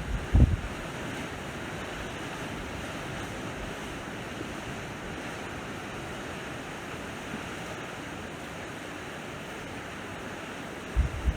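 Sea waves washing onto the shore in a steady, even rush. Wind buffets the microphone briefly just after the start and again near the end.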